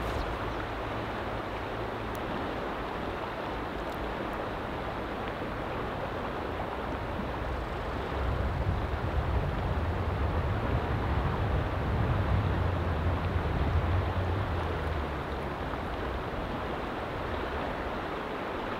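Steady rush of a clear, stony river flowing, with a stronger low rumble for several seconds through the middle.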